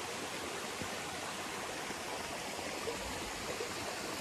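Steady rushing of a stream flowing over rock.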